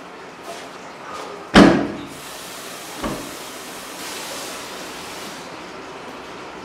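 A door bangs shut about a second and a half in, the loudest sound, followed by a lighter knock; then water runs from a washbasin tap for about three seconds with a steady hiss.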